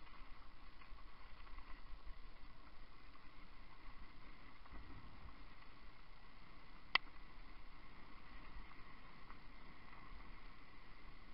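Mountain bike rolling over a leaf-covered forest trail: a steady rumble and rattle from the tyres and frame, with one sharp click about seven seconds in.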